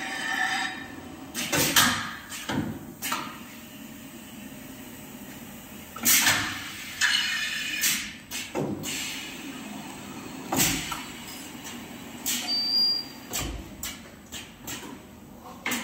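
Automatic diamond saw blade laser welding machine running: pneumatic cylinders and slides actuate in irregular strokes, each a short hiss of air and clunk, over a steady hum. A brief high beep sounds about three-quarters of the way through.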